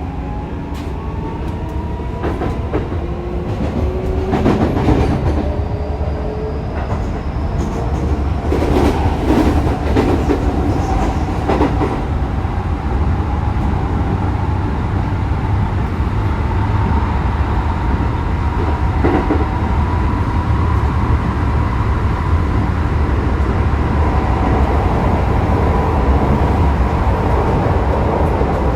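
Keikyu New 1000 series electric train with a Toyo hybrid SiC VVVF inverter, heard from inside the passenger car. The motor whine rises in pitch as the train gathers speed, then holds a steady tone under the rumble of running. Wheels clack over rail joints several times.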